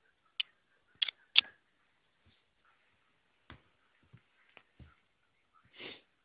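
A kitten batting at the phone filming it: sharp clicks and taps as its paws and claws strike the device, three close together about a second in, a few lighter ones later, and a short scuffing rustle near the end.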